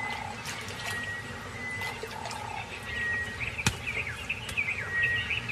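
Birds calling in a natural riverside ambience: short, steady whistled notes repeating every second or so, with a run of quick chirps in the second half and a few sharp clicks.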